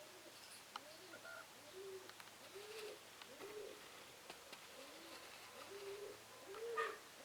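Faint bird calls: a steady run of short low notes, each rising and then falling, about one every three-quarters of a second.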